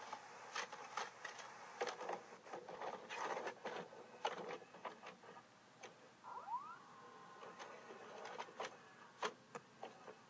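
Faint irregular clicks and crackles over a steady hiss, with a short rising squeak about six and a half seconds in.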